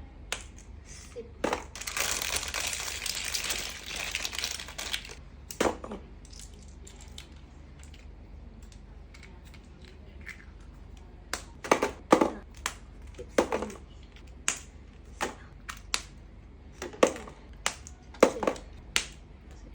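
Plastic packaging crinkling for about three seconds, then scattered light clicks and knocks of small plastic parts being handled.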